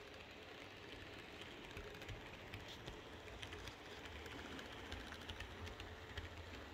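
Model DB class 110 electric locomotive and its coaches running past: a faint motor hum with many small clicks of the wheels over the track, growing busier from about two seconds in as the train comes close.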